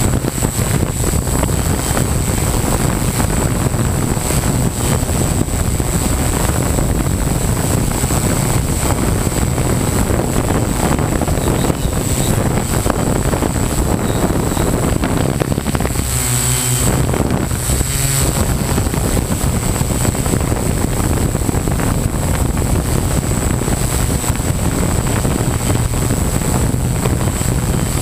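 Model hexacopter's six electric motors and propellers running in flight, a steady whirring drone heard from the camera mounted on the craft. The sound shifts briefly about sixteen seconds in.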